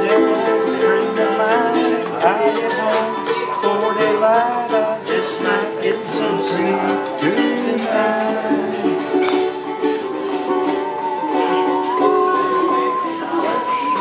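Instrumental break: a cigar box ukulele strummed in a steady rhythm under a bowed musical saw that carries the melody in gliding notes, wavering with vibrato near the end.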